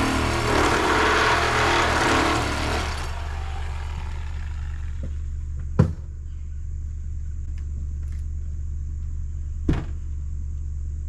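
An engine runs steadily at a low idle throughout. For the first three seconds a louder, harsh mechanical noise sits on top of it, and two sharp knocks come about six and ten seconds in.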